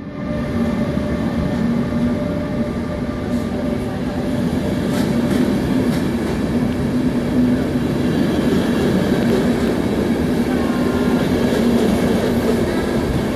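Double-deck passenger coaches of a departing train rolling past on the rails, a steady rumble of wheels and running gear that slowly grows louder as the train picks up speed, with a steady hum and a few faint clicks.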